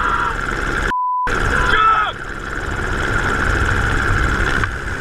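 Steady helicopter noise and wind buffeting in flight, with a person shouting. About a second in, a short censor bleep covers a word.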